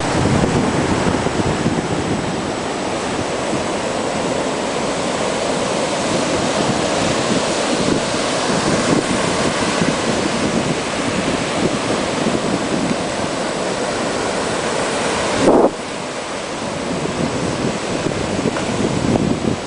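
Baltic Sea surf breaking and washing up a sandy beach, with wind buffeting the microphone. A brief loud bump about three-quarters of the way through, after which the sound is a little quieter for a moment.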